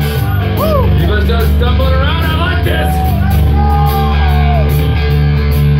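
Hard rock band playing live: electric guitar and bass guitar at full volume, with a sung vocal line over them.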